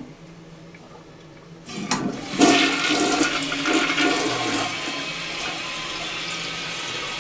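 A toilet being flushed: after a click about two seconds in, water rushes loudly into the bowl, then settles after a couple of seconds into steadier, quieter running water.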